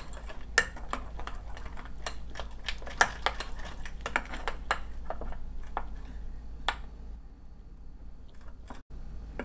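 Metal spoon beating wet besan batter in a dish, clicking and tapping rapidly against the dish; the strokes thin out and grow quieter about seven seconds in.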